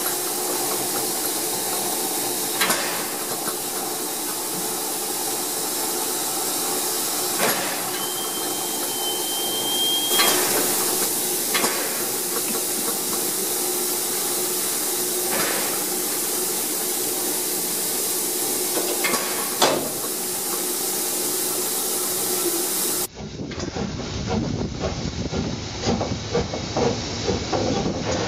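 Steam locomotive on the Harz narrow gauge blowing off steam: a loud, steady hiss, with a thin high tone held for about two seconds around a third of the way in and a few sharp clicks. Near the end the sound cuts to a rougher, lower, uneven hiss and rumble close to the front of 2-10-2T tank locomotive 99 236.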